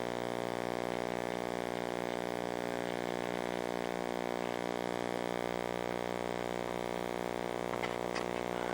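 RC model airplane's motor and propeller running at a steady, unchanging pitch, a constant drone from the onboard FPV camera, with a few faint crackles near the end.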